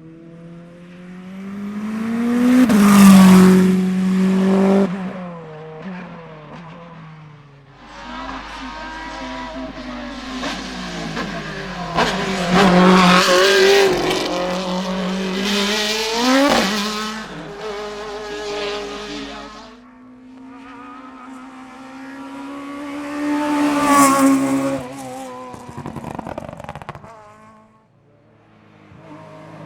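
Racing cars on a hillclimb accelerating hard past the listener, one after another. Each engine rises in pitch and drops at the gear changes, swelling and fading as it passes. The loudest pass is about three seconds in, with others around the middle and near the end.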